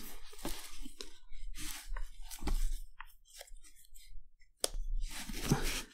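Hands working a camera sling bag's strap and elastic: scattered rustling of the fabric, with a few sharp clicks from the strap hardware, two of them near the end.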